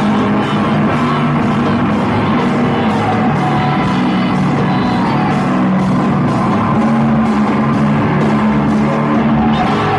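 Rock music with singing and a steady drum beat of about three beats a second.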